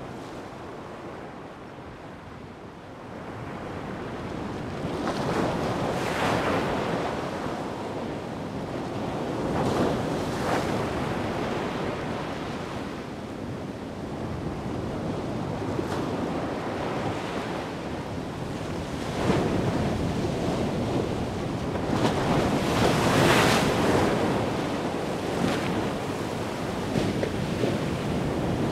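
Atlantic surf breaking against the coast, its noise rising and falling in several slow swells, with wind buffeting the microphone.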